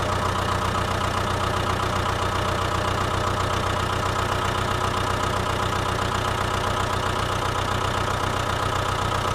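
A small motor running steadily with a fast, even rattle.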